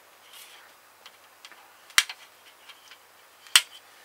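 Sprue clippers snipping plastic model-kit parts off the sprue: two sharp snaps, about two seconds in and again a second and a half later, with light plastic ticks between them.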